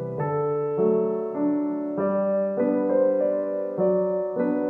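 Background music: a slow, gentle keyboard melody, a new note about every half second.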